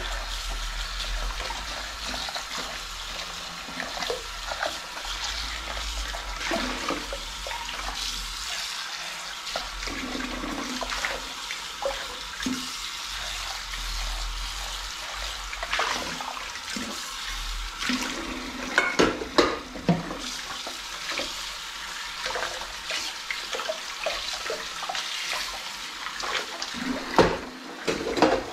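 Kitchen tap running steadily into a sink while a metal saucepan is scrubbed and rinsed by hand under the stream. Sharp knocks of dishware come in a cluster about two-thirds through and again, louder, near the end.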